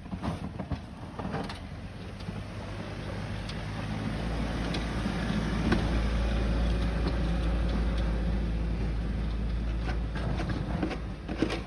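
A motor vehicle's engine rumbling as it moves slowly past, growing louder for several seconds and then easing off near the end, with scattered sharp clicks on top.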